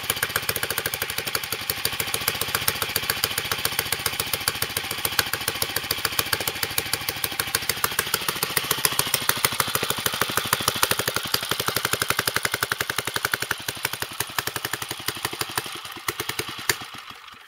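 1944 J.A.P. Model 3 single-cylinder, air-cooled stationary engine running with a rapid, even firing beat, though by its owner's account not particularly well. Near the end the beats spread out and fade as it slows.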